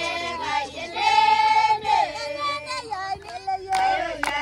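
Maasai women singing a blessing song together, several high voices in one melody, with a few sharp claps near the end.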